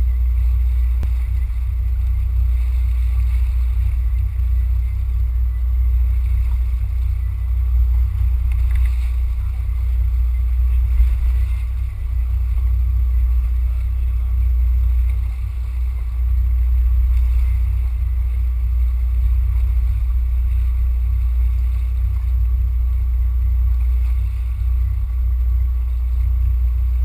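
Small fishing boat's engine running: a steady low rumble that holds through the whole stretch.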